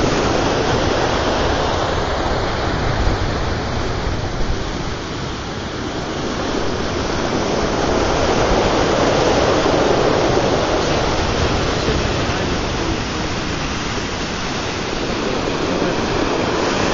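Sea surf breaking on a rocky shore, heard from above as a steady rushing wash that swells and eases slowly.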